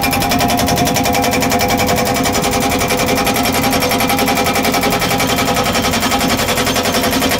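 SSI S43 hydraulic breaker on a JCB 3DX backhoe hammering its chisel into rock with rapid, even blows. The machine's steady hum runs underneath.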